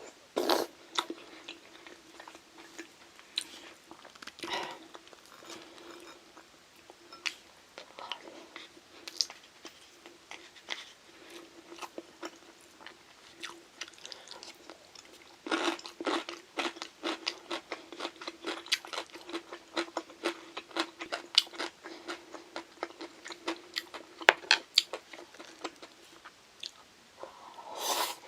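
Close-miked eating: crunchy bites and chewing, with a dense run of crunching in the second half. A faint steady hum runs underneath.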